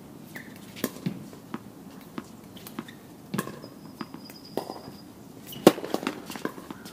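Tennis balls being struck with rackets and bouncing on the court: a string of sharp, irregularly spaced pops, the loudest about five and a half seconds in, with footsteps between them.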